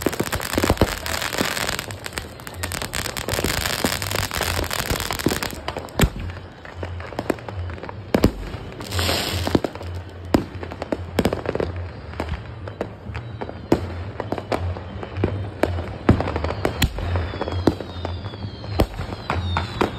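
Many fireworks and firecrackers going off at once: a continuous crackle with frequent sharp bangs of aerial shells bursting. A few falling whistling tones come near the end.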